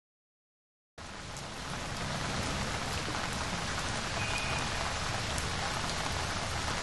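Steady rain falling, starting abruptly about a second in after silence and swelling slightly over the next second before holding even.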